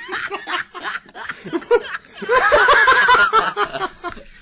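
A man and a boy laughing: short choppy snickers at first, then, about two seconds in, a loud, high-pitched peal of laughter lasting over a second.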